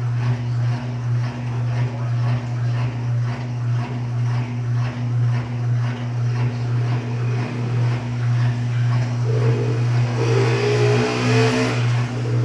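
Electrolux LTD13 13 kg top-load washing machine running in the second rinse of its heavy/dirty cycle: a steady motor hum with an even pulse about twice a second. Near the end a louder, noisier swell of agitation joins in.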